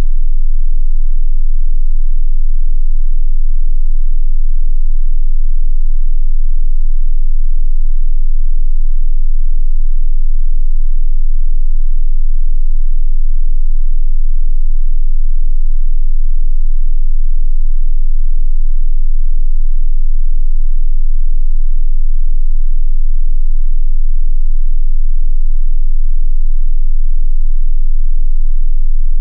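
A steady 18.98 Hz sine tone: an infrasonic hum below normal hearing, played very loud and unchanging. It is the so-called 'ghost pitch' tied to reported apparitions.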